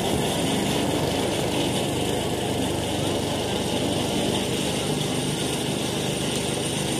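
Steady, dense hubbub of a large outdoor crowd, with no single voice standing out.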